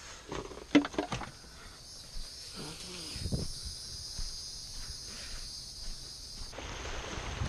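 Steady high insect buzzing, with a quick run of sharp clanks about a second in as a wheeled kayak cart and its straps are lifted out of a car's cargo area. The buzzing cuts off suddenly near the end.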